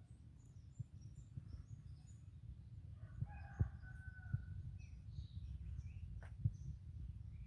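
A rooster crowing once, starting about three seconds in and lasting over a second, over faint high chirps of small birds and a steady low rumble, with a few sharp knocks.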